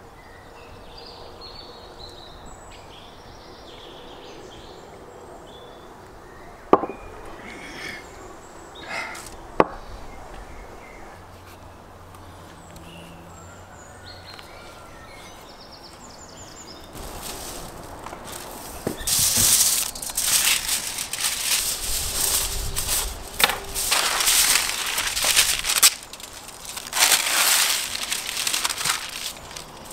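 Baking paper and aluminium foil crinkling and rustling as they are handled and spread out, in loud irregular bursts through the second half. Before that there is quiet outdoor ambience with two sharp clicks.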